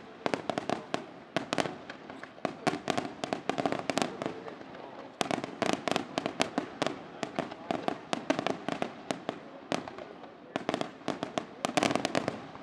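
Aerial fireworks display: shells launching and bursting in rapid succession as a string of sharp bangs and crackles, thickest near the start, in the middle and near the end.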